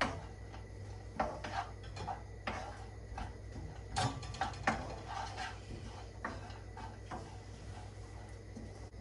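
A cooking utensil scraping and knocking irregularly against a large non-stick pan while stirring chopped shallots softening over low heat, with the strokes coming more often in the first half.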